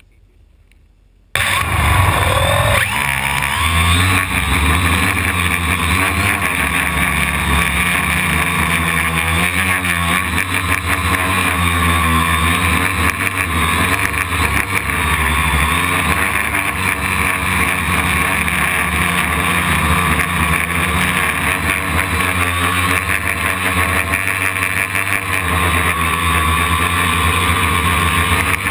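Homemade quadcopter's brushless motors and propellers, heard from a camera mounted on the frame beside one motor. The motors start suddenly about a second in and then run with a steady whine whose pitch wavers up and down as the throttle changes in flight.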